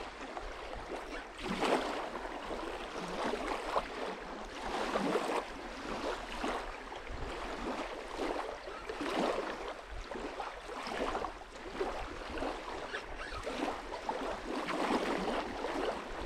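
Small waves lapping and washing along a sandy riverbank: an uneven, continuous splashing wash that swells and falls every second or so.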